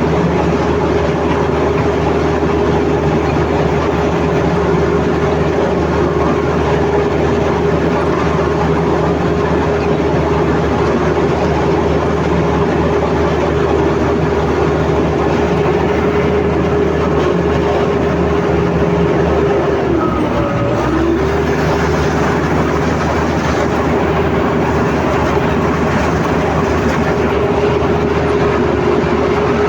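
Komatsu D85ESS crawler bulldozer working, its diesel engine running steadily under load with the tracks clanking. About twenty seconds in, the engine note dips briefly and comes back up.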